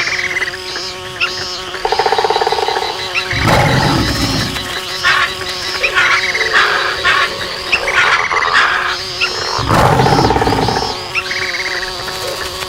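Jungle ambience sound effect: a steady insect drone with trilling, croaking calls of frogs or insects and recurring arching calls, plus two low rumbles about a third of the way in and near the end.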